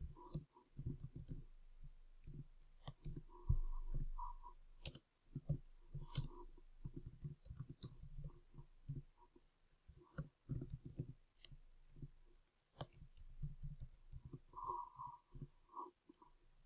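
Typing on a computer keyboard: a run of faint, irregular key clicks with short pauses between bursts.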